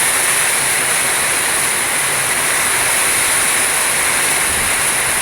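Heavy tropical rain pouring in gusty storm wind: a loud, steady rushing hiss.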